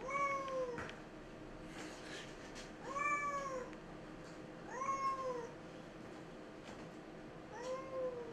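Ginger tabby cat meowing four times, about two seconds apart, each meow drawn out and rising then falling in pitch.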